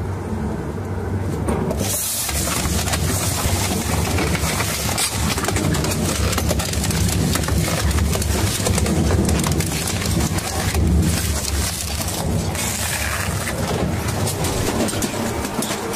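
A heavy crushing or shredding machine running: a low hum under dense crackling and grinding noise, the sound changing about two seconds in.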